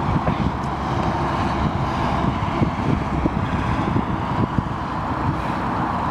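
Wind buffeting the microphone: a steady, loud low rush with constant irregular flutter.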